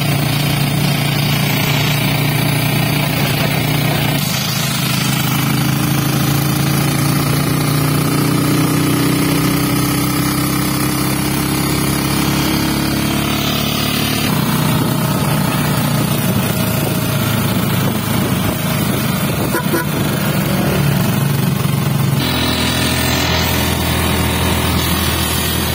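A vehicle's engine running while driving along a road, with a steady hum under a haze of road noise. Its pitch climbs slowly, drops about halfway through, and shifts again near the end.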